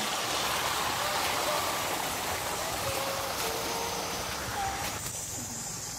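Steady rush of water running from an irrigation hose across flooded soil, with a few faint short chirps over it. About five seconds in it gives way to a steady high insect buzz.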